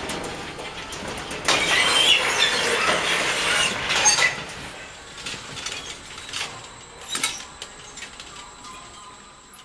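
Greenhouse crate-handling machinery running, with sharp knocks and clatter of plastic crates, gradually fading out near the end.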